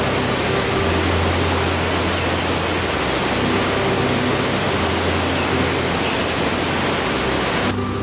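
Steady rushing of a cascading waterfall, with low sustained tones underneath that shift every second or two. Just before the end the rushing thins out abruptly.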